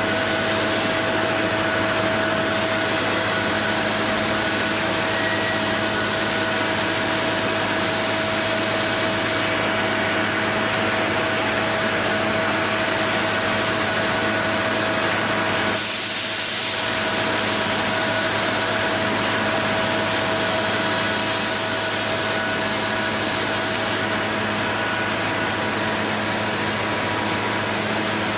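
Steady forge-shop machinery noise: a constant hum with a broad hiss and a few steady whining tones, unbroken throughout, with a brief change in the hiss about sixteen seconds in.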